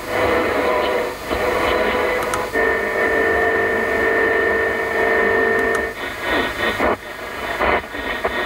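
Audi MMI Basic car radio on the AM medium-wave band, stepping up 9 kHz at a time between weak night-time stations: static and crackly interference that changes with each channel step, with a steady whistle-like tone at two pitches from about two and a half to six seconds in.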